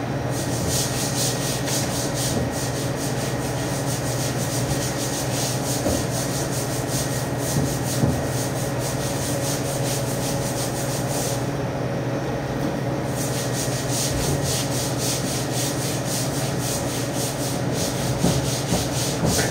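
Butcher's knife scraping and cutting along a side of pork in quick, even strokes, with a pause of about two seconds past the middle, over a steady low hum.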